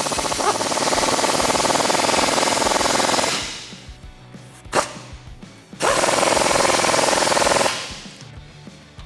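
Impact wrench hammering exhaust clamp nuts tight through a deep socket: one run of about three seconds, then a single sharp click, then a second run of about two seconds.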